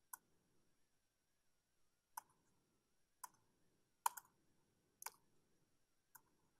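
Six sharp clicks from a laptop being operated, a second or two apart with one doubled, over near silence: repeated presses on a laptop that has stopped responding.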